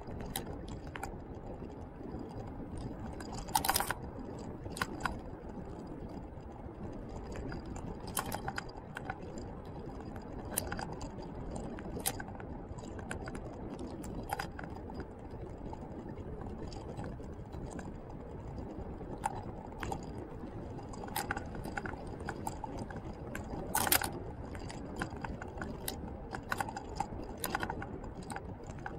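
Steady rumble of tyres rolling over an asphalt lane with the ride's own rattles: irregular sharp clicks and jangles every second or two, the loudest about four seconds in and again near twenty-four seconds, over a faint high steady tone.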